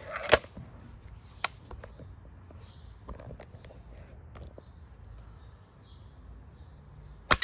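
Air rifle shots at a metal pan: a sharp crack about a third of a second in and a fainter click about a second later. Near the end comes another sharp crack, with the metal starting to ring.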